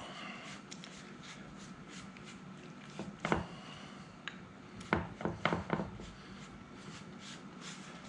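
A few soft knocks and clicks of kitchen utensils being handled, one short cluster about three seconds in and several quick ones between five and six seconds in, over quiet room tone.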